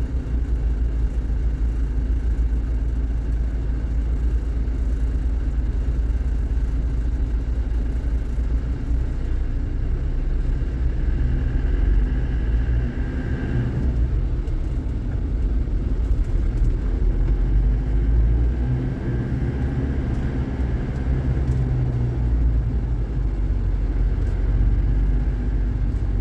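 Steady low rumble of engine and road noise heard inside the cabin of an Isuzu Panther creeping along in slow, stop-and-go toll-road traffic.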